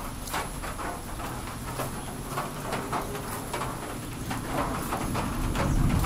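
Chickens clucking in short, irregular calls, mixed with scattered drips and patter of rain. A low rumble swells near the end.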